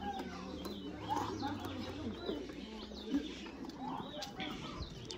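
Birds chirping in short repeated calls over a low murmur of indistinct voices and footsteps of a group walking on a concrete lane.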